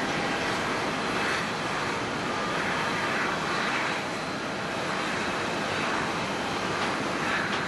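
Steady jet-engine noise of airliners at an airport, with a twin-engine jet airliner on final approach with its landing gear down. The noise is even, swelling gently a few times.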